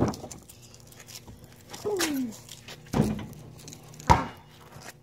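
A basketball bouncing and striking hard, about four sharp hits over the few seconds, the loudest just after four seconds in with a brief ring. A short falling cry sounds about two seconds in.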